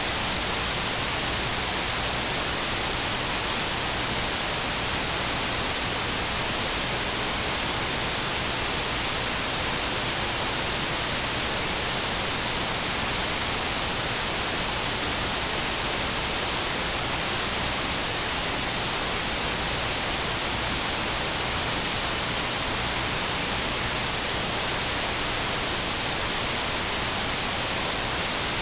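Steady, even static hiss with no music or speech in it, unchanging throughout.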